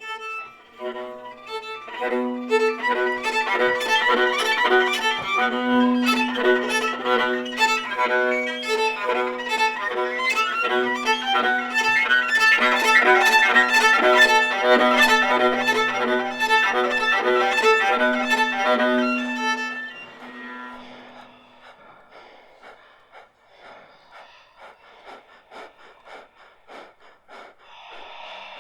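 Viola and baritone saxophone duo playing: a steady held low note under quick repeated higher notes. About 20 seconds in, the held note ends and the music drops to a quiet, sparse texture.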